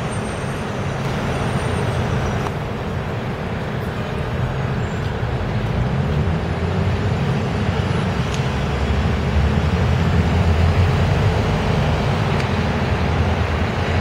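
City street traffic with a bus engine running close by, a steady low engine sound over the road noise that swells about ten seconds in.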